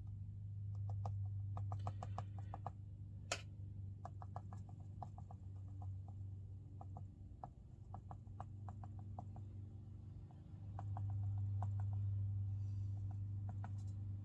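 Watercolour brush dabbed on paper in quick light taps, several a second in irregular runs, with one sharper click about three seconds in, over a steady low hum.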